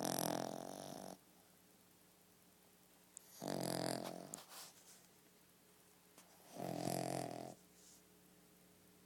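A sleeping pet snoring: three snores about three seconds apart, each about a second long.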